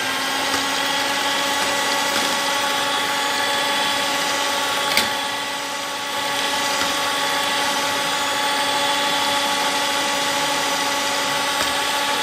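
Electric hand mixer running steadily at medium speed, its twin wire beaters whisking a cream mixture in a bowl: a steady motor whine. There is a single sharp click about five seconds in.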